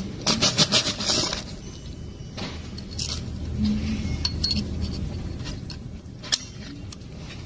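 Metallic clinking: a quick rattling run of clinks in the first second or so, then scattered light ticks and clicks over a faint low hum.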